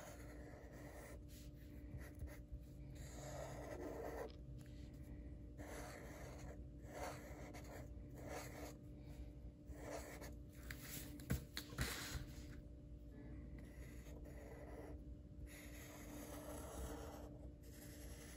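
Sharpie marker drawn across paper in a series of short tracing strokes of varying length, a faint scratchy rubbing, with two light taps a little past the middle.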